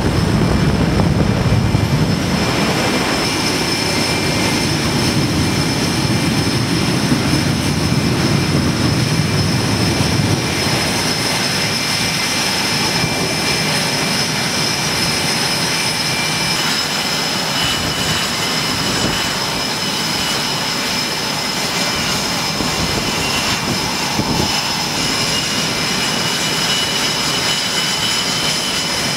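F/A-18 Hornet jet engines running on an aircraft carrier's flight deck: a steady high whine over a broad rush. A deeper rumble during the first ten seconds or so eases off after that.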